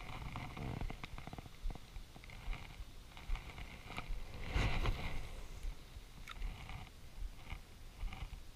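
Handling noise from a spinning rod and reel being turned over in the hands: rubbing, small clicks and low bumps, with a louder rustle about four and a half seconds in.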